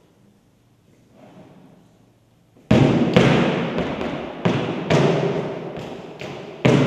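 Flamenco footwork: the heels and toes of flamenco shoes stamping on a low platform, quiet at first and then a run of loud, sharp stamps starting about two and a half seconds in, each ringing out in the echo of a large hall.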